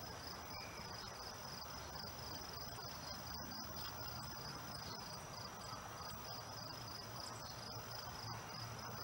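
Crickets chirping: a high, steady run of evenly repeated chirps, a few a second, over a faint background hiss.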